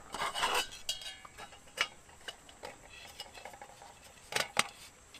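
A brief rustle, then a few light clinks and sharp clicks of small hard objects being handled: one ringing clink about a second in and two quick clicks near the end.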